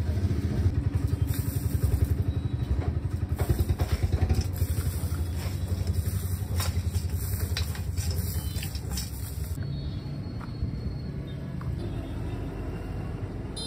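A motor running with a low, fast, steady pulse. Over it in the first part come light scrapes and clatter, fitting a metal bowl and handfuls of ash being scattered over clay cups stacked in a kiln.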